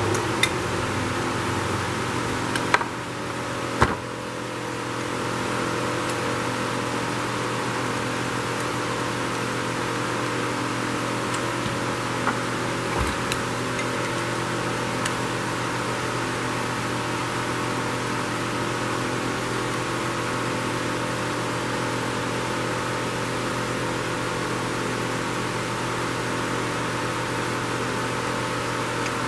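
Steady hum and rush of an electric fan running. A few sharp clicks and taps from a screwdriver and small metal carburetor parts being handled come near the start and again about twelve seconds in.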